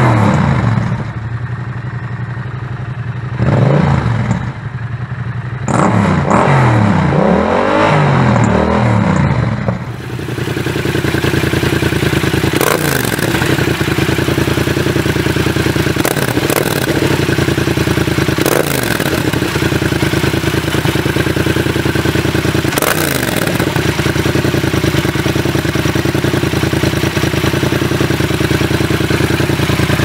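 Yamaha MT-07 parallel-twin engine through an aftermarket Termignoni slip-on, revved up and down several times. About ten seconds in it gives way to the same model through an M4 slip-on with the dB killer fitted, idling steadily with four short throttle blips.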